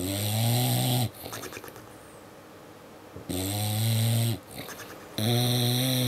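English Bulldog snoring in its sleep: three loud, drawn-out snores of about a second each, with softer fluttering of its loose lips between them.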